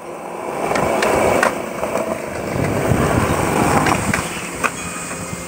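Skateboard wheels rolling on concrete, a steady rumble with a few sharp clicks. About four seconds in, the board grinds along the top of a concrete ledge.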